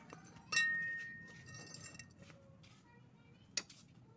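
Lengths of steel angle iron clinking as they are handled. A sharp clink about half a second in rings on for over a second, and a second short click comes near the end.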